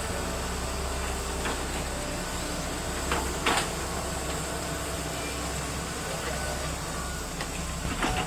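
Heavy diesel machinery running steadily with a low hum, with a couple of sharp metal clanks about three seconds in and another near the end.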